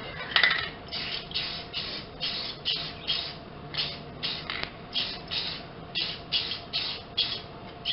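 Aerosol rattle can of acrylic lacquer spraying in quick short bursts onto a wooden plane handle, a hiss a bit over twice a second.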